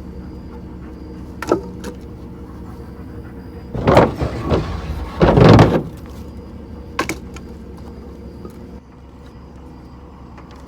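Scrap lumber being thrown onto a burn pile: a few light knocks and two loud wooden clatters about four and five and a half seconds in, over a vehicle engine idling steadily.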